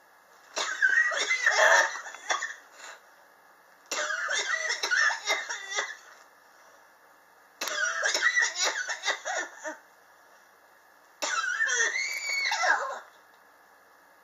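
A person's chronic cough: four coughing fits, each a run of quick coughs lasting about two seconds, with short pauses between them. The sufferer blames the cough on sharp temperature changes in the apartment.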